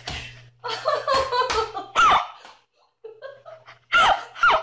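A woman laughing hard in several bursts, with a short pause in the middle and two high squeals of laughter near the end.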